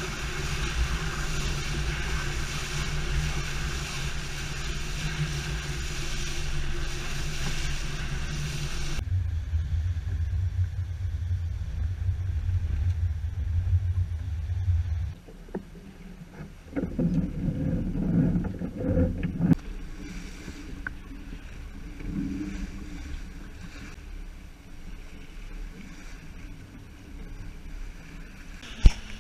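Wind buffeting the microphone and water rushing and splashing along the hull of a sailboat heeled hard under sail in a strong breeze. The sound changes abruptly about a third of the way in and again about halfway, and there is one sharp click near the end.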